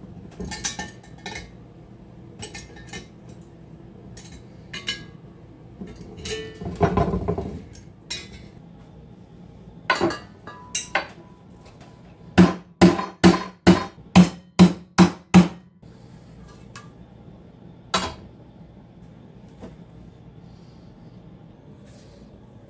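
Scattered metal clinks and knocks, with a short scraping rattle about seven seconds in. Past the middle comes a run of about eight evenly spaced hammer blows on ringing metal, roughly three a second.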